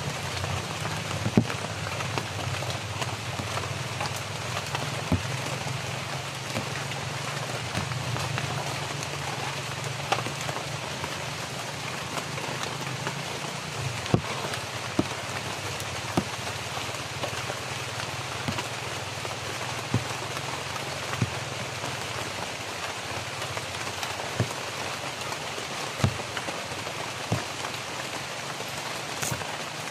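Steady rain falling on dense foliage, with heavy drops striking sharply every few seconds. Under it a low steady motorcycle engine hum runs in the distance and fades out about two-thirds of the way through.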